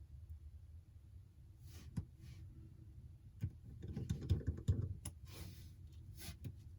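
Scattered light clicks and taps from small phone parts and tools being handled during an iPhone 11 screen replacement, with a cluster of soft knocks about four to five seconds in.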